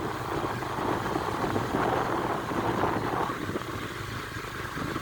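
Motorcycle engine running at a steady pace, with a low hum and road noise.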